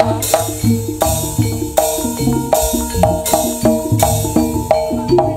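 Javanese jaranan music: kendang hand drums beating with a heavy, boomy bass, over a repeating figure of short pitched gamelan notes and a sharp hit about every three quarters of a second.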